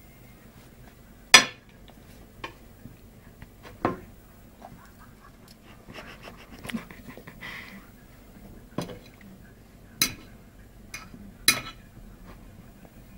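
Metal knife and fork clinking and scraping on a plate while meat is cut and picked up: sharp, separate clicks at irregular intervals, often a second or more apart, the loudest about a second in.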